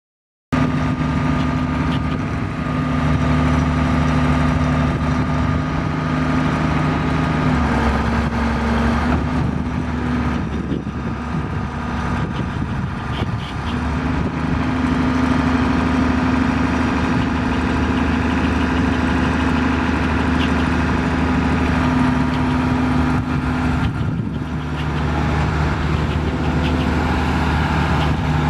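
The six-cylinder diesel engine of a 1979 John Deere 690B excavator running steadily. Its note dips and roughens for several seconds about a third of the way in, and again briefly near the end, while the hydraulics move the boom and bucket.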